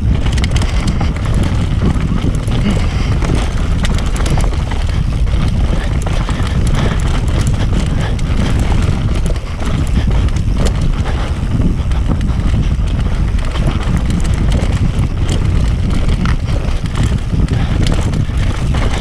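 Mountain bike descending a rough dirt singletrack at speed: wind buffets the action camera's microphone with a heavy rumble, while tyres over roots and rocks and the bike's chain and frame keep up a constant clatter of knocks and rattles.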